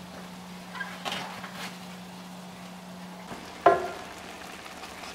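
Ground beef and onions sizzling in a stainless steel skillet as they are stirred with a spoon, with a few light scraping clicks. A little over three and a half seconds in, the spoon knocks sharply against the pan, which rings briefly.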